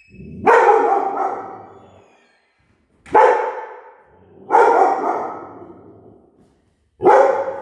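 A 10-month-old mixed-breed dog barks four times, each bark trailing off in a long echo off the metal walls. These are the reactive barks of a fear-aggressive dog at an approaching person.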